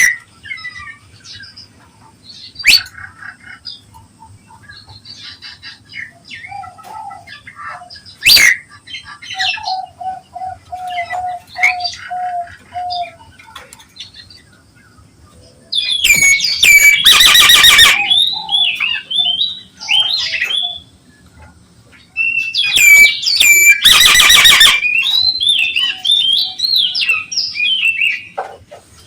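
Nias hill myna calling in full voice: scattered whistles and sharp cracking notes, a run of low repeated whistles about ten seconds in, then two long loud bouts of harsh squawks mixed with gliding whistles.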